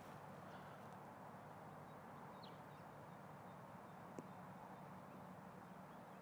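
Near silence: faint steady outdoor background hiss with a low hum, a few faint short chirps, and one short click about four seconds in.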